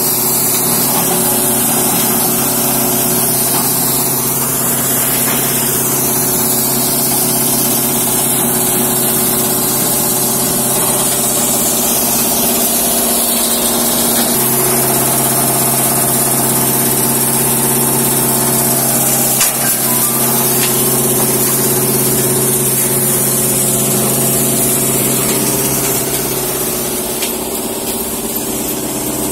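Plywood-waste crushing machine and its chip elevator running: a steady machine drone with several held hum tones under a loud high hiss. A single knock comes about two-thirds of the way through.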